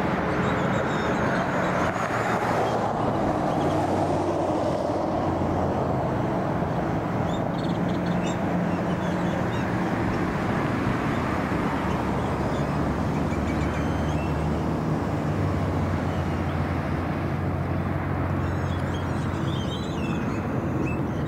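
Steady airport apron noise: airliner jet engines running at idle, a continuous low hum with a mid-pitched rush, as a jet taxis past.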